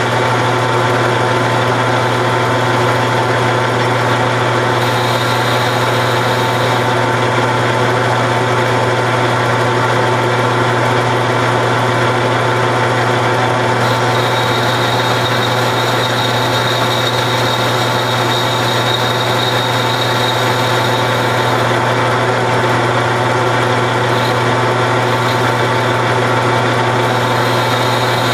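Grizzly G4003G gear-head metal lathe running under power while a boring bar takes a cut inside the backing plate's centre bore: a loud, steady machine hum. A thin high tone joins about five seconds in and again from about fourteen seconds.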